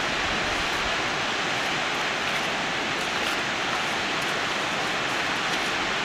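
Steady, even rushing of a waterfall, unbroken throughout.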